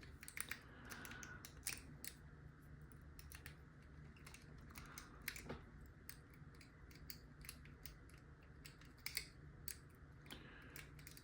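Faint, irregular small metallic clicks of a tickler-style rake pick being worked in the keyway of a Master Lock No. 3 padlock, raking the pin stack, with the lock not yet opening.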